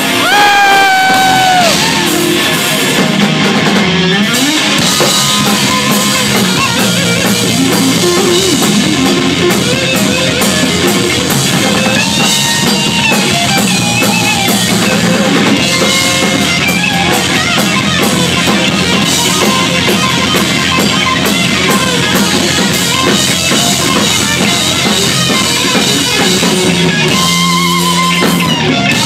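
Hard rock band playing live: distorted electric guitars over bass guitar and a drum kit, loud and continuous, with a high guitar note bending in pitch right at the start.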